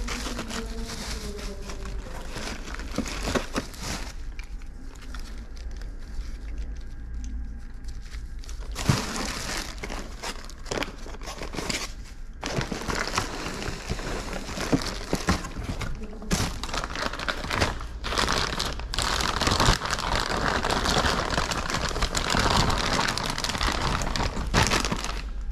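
Plastic crinkling and rustling with frequent small clicks and knocks as parts are handled, over a steady low hum. It is sparser for a few seconds early on and busier through the second half.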